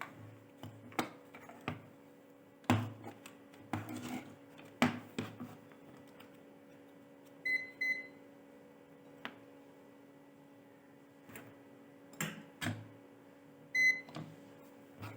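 Short electronic beeps, two quick ones about halfway through and one more near the end, amid scattered clicks and knocks of handling over a steady electrical hum.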